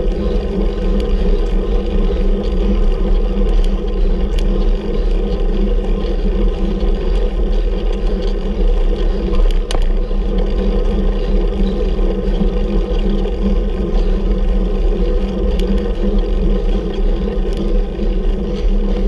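Steady rumbling wind and road noise on a camera microphone riding along on a bicycle climbing a hill, with a few faint clicks.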